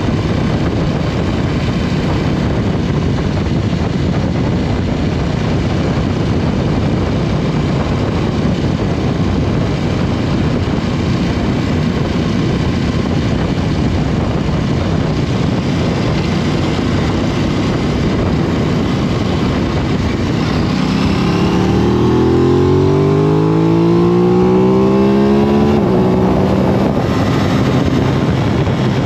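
Aprilia RS 660's parallel-twin engine heard on board, under a steady rush of wind noise at speed. About two-thirds of the way through, the engine note climbs in pitch as the bike accelerates hard, growing a little louder, then eases off.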